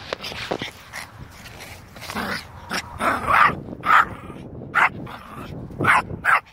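Small Yorkshire terrier barking in a run of short barks, sparse at first, then louder and closer together from about two seconds in.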